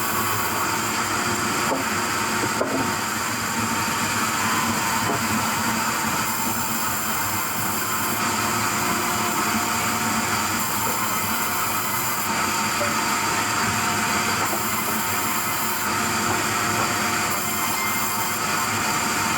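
Sawmill machinery running steadily: a continuous whirring noise with several steady high whining tones through it.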